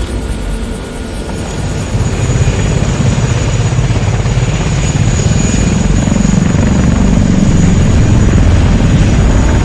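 Aircraft engine and propeller noise: a dense, steady rumble with a thin high whine, growing louder about two seconds in and cutting off abruptly at the end.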